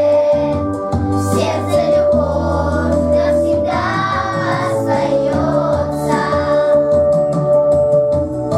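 A song: singing over a recorded backing track with a steady bass line.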